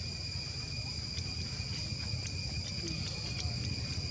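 Steady, high-pitched insect chorus of crickets or cicadas: two unbroken tones, over a low rumble, with a few faint ticks in the middle.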